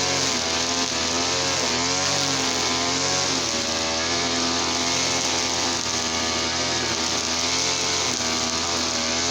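Brush cutter's TL33 small two-stroke engine running steadily, its pitch wavering slightly now and then.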